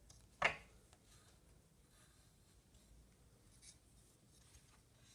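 Screwdriver working at the metal fan case of a Kirby Heritage II vacuum: one sharp clink about half a second in, then faint scraping and rubbing.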